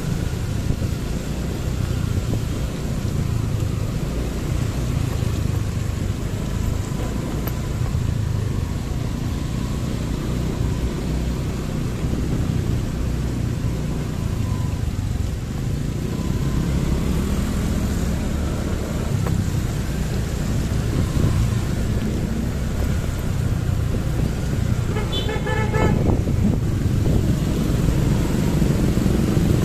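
Steady low rumble of traffic and wind from riding a motorbike through city streets, with a vehicle horn tooting in a quick run of short beeps near the end.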